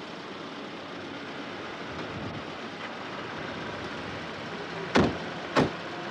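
Two car doors of a Citroën hatchback slammed shut about half a second apart near the end, the two loudest sounds, over a steady background hum.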